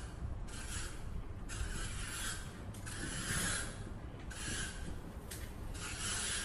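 Repeated hand-worked scraping or rubbing strokes, about six in a row at roughly one a second, each a hiss lasting under a second.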